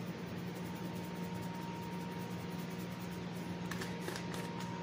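Steady low electrical hum with a thin high whine, the background of a home kitchen. Near the end come a few faint, short scratchy sounds as a hand handles raw chicken strips on a wooden cutting board after seasoning them.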